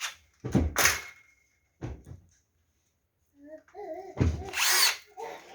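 Power drill running in short bursts, likely driving or removing screws on a ceiling light fixture. There is a brief run about half a second in, a very short one near two seconds, and a longer run with a steady hum in the last couple of seconds.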